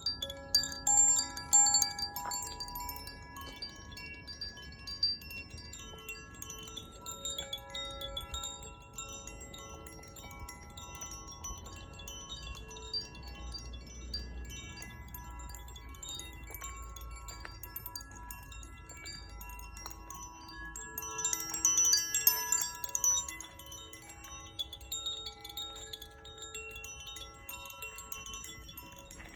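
Zaphir Sunray chime ringing: overlapping bright, sustained tones as its rods are set swinging. The tones come in louder clusters near the start and again about three quarters of the way through, over a faint low rumble.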